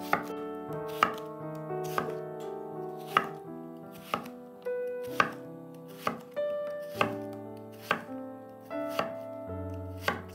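Kitchen knife chopping food on a cutting board, single sharp cuts about once a second, over background music.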